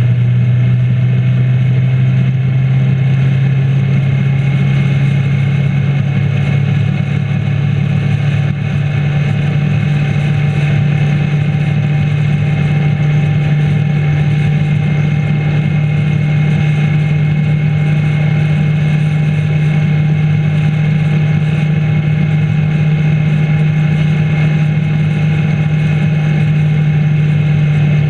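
The rider's own motorcycle engine running at a steady cruise at road speed. Its note dips briefly about eight seconds in, then settles slightly higher and holds steady.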